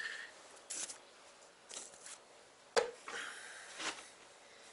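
Faint handling noises: a cloth towel rustling as it is pulled off a glass bathroom scale, with one sharp knock just before three seconds in.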